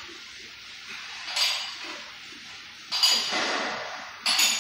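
Metal-on-metal clinks and clanks of hand tools and hardware at a steel engine stand: three sharp knocks, each with a short ring, about a second and a half apart, the middle one trailing into a scraping rattle.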